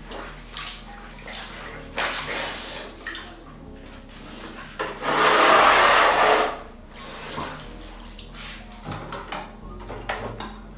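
Water splashing and sloshing in a plastic bucket, with one loud pour about halfway through that lasts a second and a half, among scattered knocks of plastic being handled.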